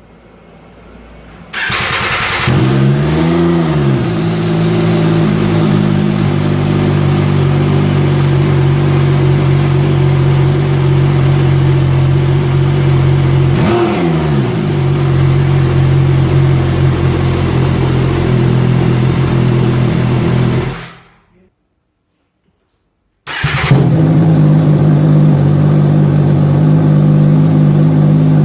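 MV Agusta Brutale motorcycle engine through a QD aftermarket exhaust, starting up about a second and a half in and idling loudly and steadily, with two short blips of the throttle. It cuts off about 21 seconds in, then after a two-second silence starts again and idles on.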